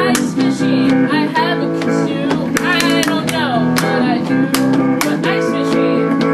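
A guitar strumming chords, with a voice singing over it.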